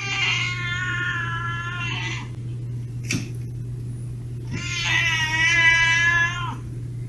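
A cat giving two long, drawn-out meows, each about two seconds, the second coming a few seconds after the first, over a steady low hum.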